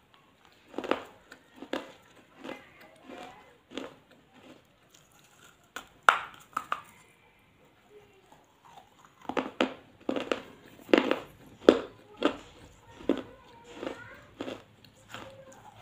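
Fired clay pot shards being bitten and crunched in the mouth. There is a string of sharp crunches, a loud one about six seconds in, then a quick run of them in the second half.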